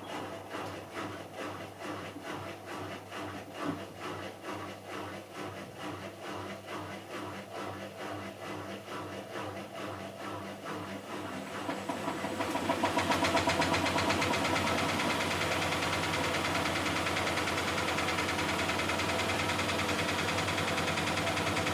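Miele Softtronic W6544 washing machine drum turning with a rhythmic knock about twice a second. About twelve seconds in it speeds up into a louder, steady spin. The noise comes from a loose drum, which the uploader puts down to a broken drum spider.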